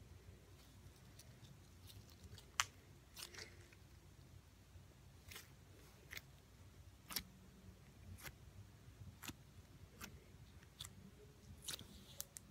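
Slime being stretched and squeezed in the hands, giving faint sticky clicks and pops about once a second, at irregular times, with the sharpest about two and a half seconds in.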